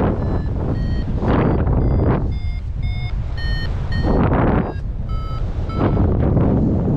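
Paragliding variometer beeping, about two short beeps a second at shifting pitch, the climb tone that signals lift, over loud gusting wind on the microphone.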